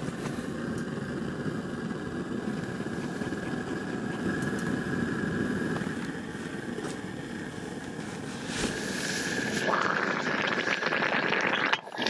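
Portable gas camp stove burner running with a steady roar under a kettle of water. About ten seconds in a brighter hiss joins it.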